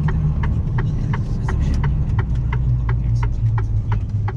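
Diesel engine running steadily, heard from inside the vehicle's cab, with a light regular ticking about three times a second over it.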